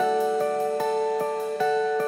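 Post-rock instrumental passage: a clean guitar picking an arpeggio, one ringing note about every 0.4 seconds, with no singing.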